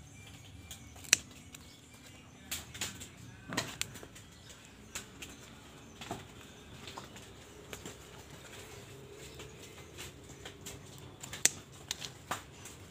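Faint outdoor garden sounds: a sharp snip about a second in as scissors cut an okra pod from the plant, then scattered clicks and rustles of leaves and dry litter being brushed and stepped on among the okra plants.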